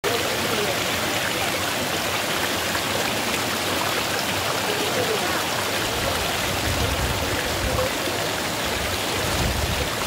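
Steady rush of water running and splashing over rocks in a stream below a waterfall.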